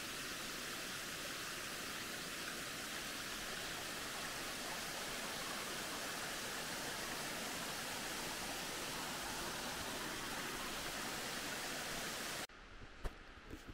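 Steady, even rushing noise with no pitch. It cuts off suddenly about three-quarters of a second before the end, leaving a quiet background with a few faint clicks.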